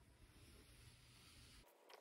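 Near silence with the very faint scratching of a scratch awl's point drawn around a paper template's edge on leather. A low background hum cuts off suddenly near the end.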